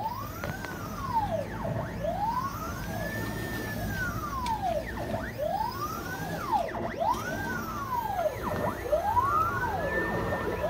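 CNC router axis motors whining, rising and then falling in pitch as the axes speed up and slow down. The moves follow one another about every second and a half and overlap.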